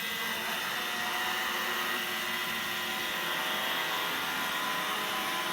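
Roomba robot vacuum running, a steady motor whir with a high whine over it.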